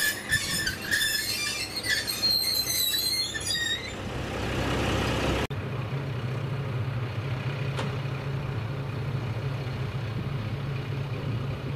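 Diesel railcar rolling away past a level crossing, its wheels squealing, with the crossing alarm ringing in an even rhythm; this fades over the first few seconds. About five and a half seconds in the sound cuts to the steady low hum of a KiHa 37100 diesel railcar idling at a platform.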